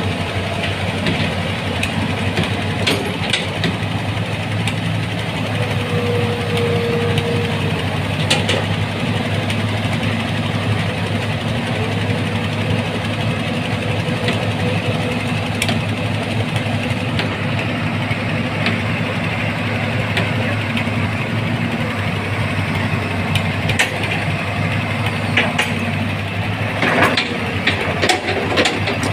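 Hitachi Zaxis 210F-5G excavator's diesel engine running steadily during a check-over, with a faint whine that comes and goes. Scattered knocks and clicks, more of them near the end.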